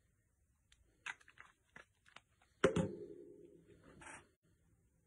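A folded card-stock card being handled: a few light paper rustles and taps, then a single sharp knock about two and a half seconds in with a short low ringing tail, and a brief rustle of paper near the end.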